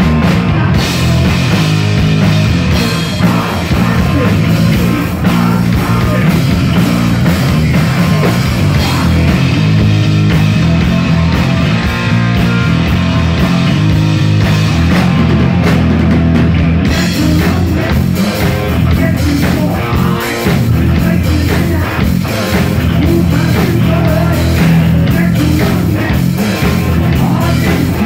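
Heavy metal band playing live at full volume: distorted electric guitar, bass and drums, with sung vocals. Recorded close to the stage on a smartphone microphone.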